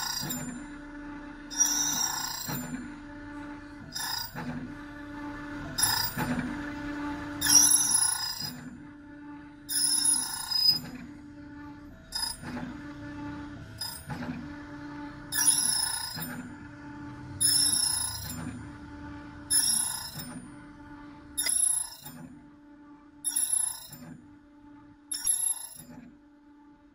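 Key-cutting machine's cutting wheel biting into the bit of a double-bit security key in short, high-pitched, ringing passes about every two seconds, over the steady hum of the machine's motor.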